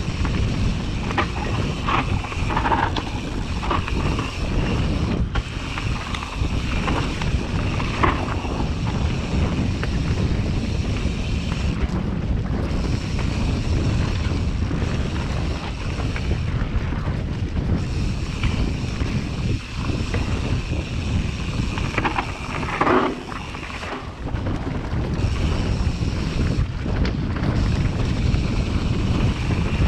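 Wind buffeting the microphone over the steady rumble and rattle of a mountain bike ridden fast down a dirt trail: tyres on loose ground, chain and frame clattering, with scattered sharp knocks from roots and rocks.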